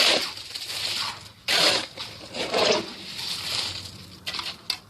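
Wet concrete being worked in among stones: several short scraping, splattering bursts, then a few light knocks near the end.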